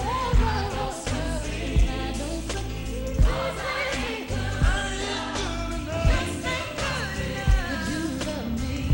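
Gospel music: singing over a sustained bass line, with a deep drum beat falling about every second and a half.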